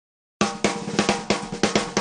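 Theme music opening on a drum pattern: sharp snare and kit hits about three to four a second, starting after a brief moment of silence.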